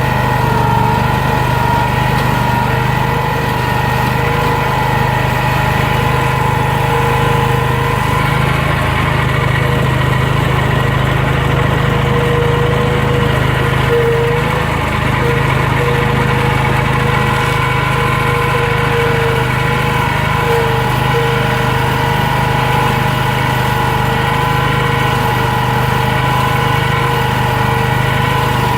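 Walker lawn mower's engine running steadily while driving a power rake dethatching attachment, with a steady whine above the engine note.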